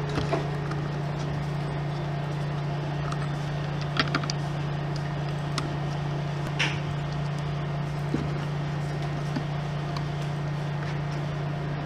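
A few light clicks and taps as hands handle the needle clamp of a handheld mini sewing machine during a needle change, over a steady low hum.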